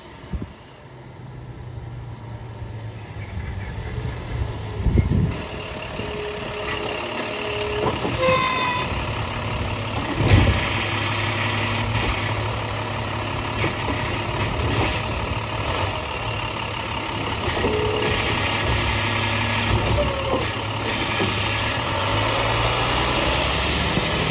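Diesel engine of an International WorkStar garbage truck with a Heil STARR automated side-loader arm growing louder as the truck approaches and pulls up, then running steadily. Several sharp knocks come between about five and ten seconds in, and the hydraulic arm works the cart at the curb.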